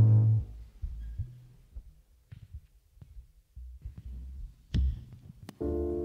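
A congregation sitting down, with scattered low thumps and rustling and two sharp knocks near the end. About five and a half seconds in, a piano or keyboard starts a sustained chord.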